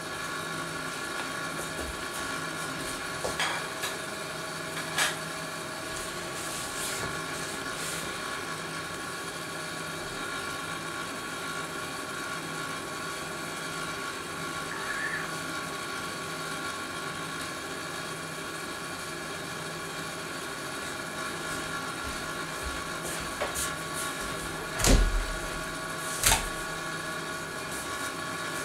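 A steady machine hum with several held tones. A few short knocks sound through it; the loudest comes near the end, followed by another a second or so later.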